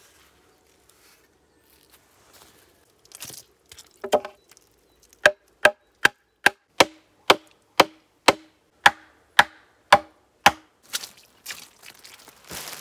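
A pointed wooden stake being driven into muddy ground with a dozen sharp, evenly spaced blows on its top, about two a second, each with a short ring. Near the end, a plastic bag rustles as it is handled.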